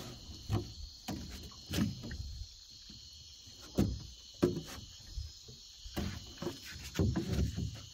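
Night insects, crickets among them, chirring steadily, with several dull knocks from handling gear in the boat, the loudest about four seconds in.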